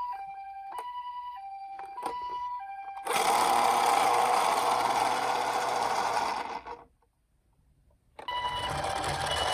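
Japanese ambulance two-tone hi-lo siren, clean tones alternating high and low about every 0.6 s. About three seconds in it gives way to a loud steady whirring noise, like a small motor, that cuts off suddenly. After a second or so of near silence the whirring returns with the siren faintly under it.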